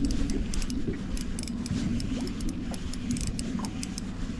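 A spinning reel clicking in quick, irregular runs of ticks while a hooked trout is played in. Under the clicks runs a steady low rumble of wind on the microphone.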